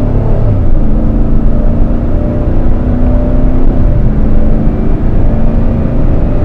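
2015 Cadillac Escalade ESV's 6.2-litre V8 and tyre noise heard from inside the cabin while cruising: a steady low engine hum over road rumble, its pitch shifting slightly now and then.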